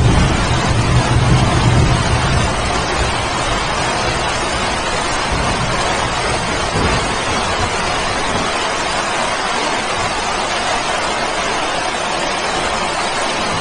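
Steady, heavy rain hiss, with a low rumble of distant thunder fading away over the first few seconds.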